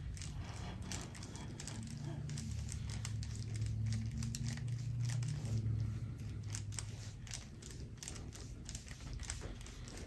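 Soft, irregular crinkling and crackling from a deep-tissue forearm massage pressing along a bare back, over a low steady hum that fades out about seven seconds in.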